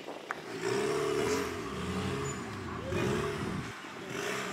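Rock crawler buggy's engine revving in bursts while it climbs over boulders, with one surge about a second in and another about three seconds in.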